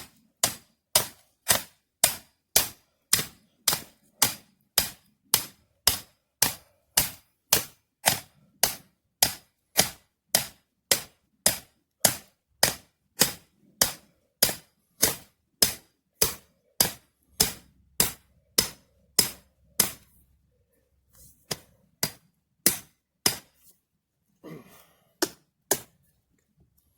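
Hammer strikes driving the anchor stake of a dog-proof raccoon trap into the ground, a sharp strike about twice a second for some twenty seconds, then after a short pause a few more spaced blows near the end.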